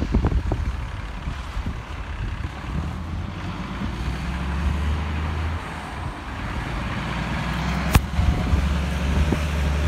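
Wind buffeting the microphone at first, then a heavy truck's engine drone building and holding over the hiss of traffic in the rain. A single sharp click about eight seconds in.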